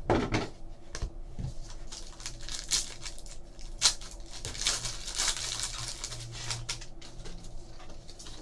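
Trading card pack wrappers crinkling and tearing as hockey card packs are opened and handled: a run of irregular crackles and snaps.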